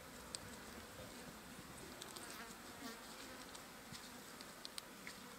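Flies buzzing around a fresh carcass, faint and continuous, with a few sharp clicks scattered through.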